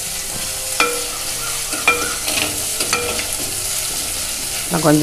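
Onions, tomato, chilli and curry leaves sizzling in hot oil in a clay pot as a steel spoon stirs them. The spoon knocks against the pot three times, about a second apart, each knock with a short ring.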